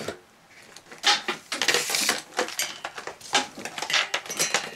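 Audio cables with RCA plugs being handled and moved about on a workbench: an irregular run of rustles and light clicks as the leads shift and the plugs knock against the surface.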